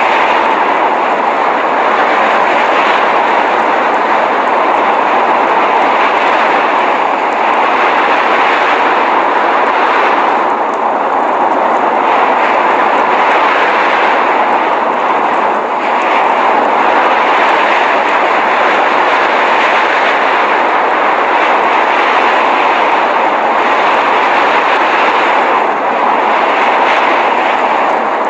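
Steady blizzard wind noise: an even, loud rushing hiss without distinct gusts, easing only slightly now and then.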